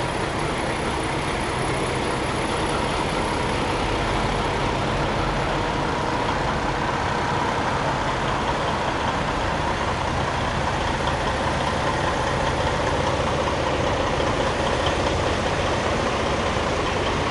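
Diesel engines of parked semi trucks idling steadily: a constant low rumble with a faint held tone above it.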